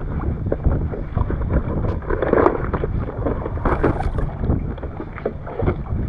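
Wind rumbling on the microphone over water lapping and small irregular knocks against a kayak's hull.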